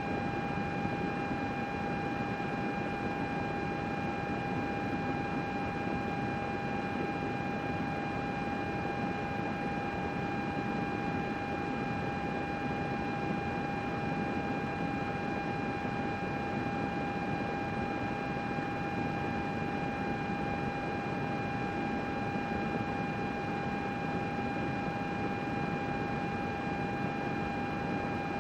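A desktop computer running steadily: its cooling fans make an even rushing noise with a constant high whine.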